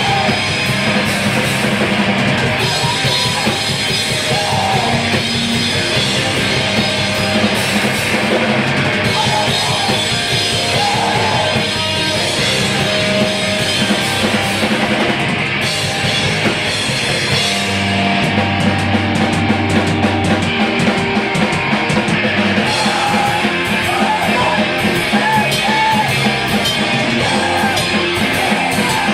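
A screamo/crust hardcore band playing loud and live: distorted guitars and bass over a drum kit with heavy cymbals. The song shifts to a new section about halfway through.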